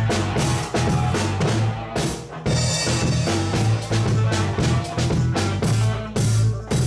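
Live band playing an instrumental funk groove: drum kit with bass drum and rimshots over a steady bass line, with a brief break about two and a half seconds in.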